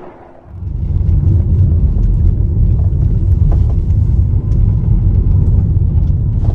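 Steady low road and engine rumble inside the cabin of a moving Honda minivan, starting about half a second in.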